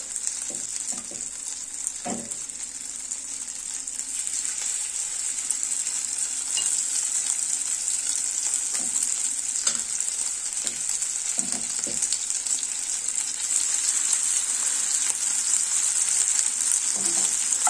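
Chopped chicken cutlet mixture sizzling in hot oil in a frying pan as spoonfuls are dropped in, with a few short knocks of the spoon against the pan and bowl. The sizzle grows louder over the last few seconds as the pan fills.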